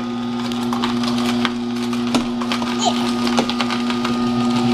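Horizontal slow (auger) juicer running with a steady low motor hum while its auger crushes carrot pieces pushed down the chute, giving irregular cracking and snapping.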